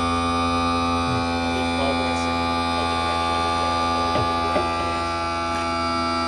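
Electric motor of a Johnson 40 hp outboard's power trim/tilt pump running steadily, moving the motor on its tilt. This is the rebuilt pump working again after a new poppet valve and a freed-up bypass valve.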